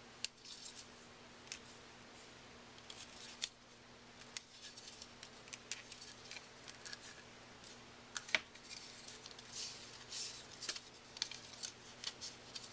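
Scattered clicks, crinkles and short rubbing scrapes of a vinyl skin piece being fed around and pressed onto a plastic lens hood by hand, over a faint steady hum.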